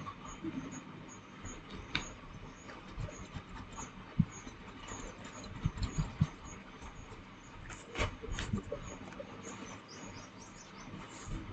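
Faint handling noise from hands rolling modelling clay between the palms: soft rubbing with scattered clicks and a few small knocks, over a steady hiss.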